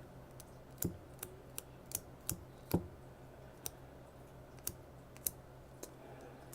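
Irregular light clicks and taps of a hand handling an iPhone and dabbing a dust-removal sticker on its glass screen, with two heavier knocks in the first three seconds.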